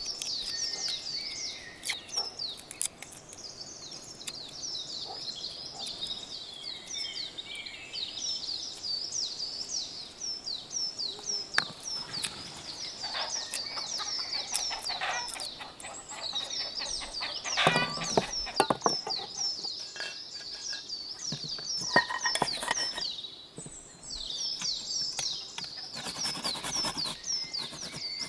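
Small birds chirping in quick repeated calls, with scattered clicks and taps of a small knife peeling garlic cloves over metal bowls; a few taps ring briefly.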